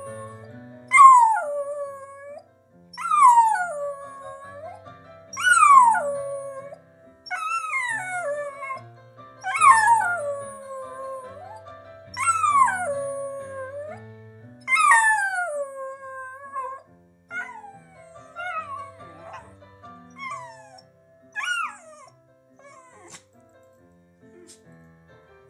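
Dachshund howling along to live ragtime piano. The howls come about every two seconds, each starting high and sliding down. About seven loud ones in the first fifteen seconds, then shorter, weaker ones that stop a few seconds before the end. Piano notes run underneath throughout.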